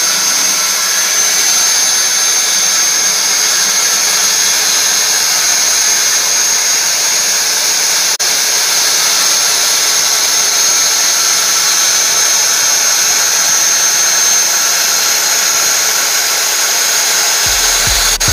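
Handheld electric power tool run continuously as it is pushed along a wooden board: a steady high whine over a rushing cutting noise.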